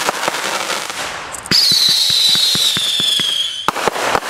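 Consumer fireworks going off: a run of rapid crackling pops, then about one and a half seconds in a loud whistle that slowly falls in pitch for about two seconds while the pops continue, then a few sharp bangs near the end.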